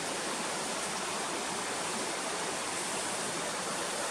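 A river running over shallow rocky rapids: a steady rush of water.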